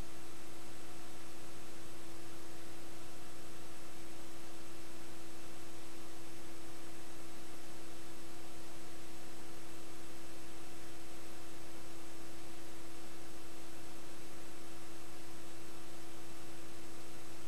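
Steady electrical hum with a constant tone and an even hiss, unchanging throughout and with nothing else in it: the noise floor of a videotape transfer that has no recorded audio.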